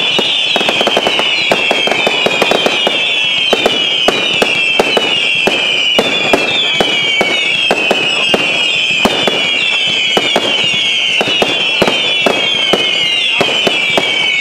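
A fireworks battery firing a rapid, unbroken stream of whistling shots: many shrill whistles overlap, each falling in pitch, with sharp bangs throughout.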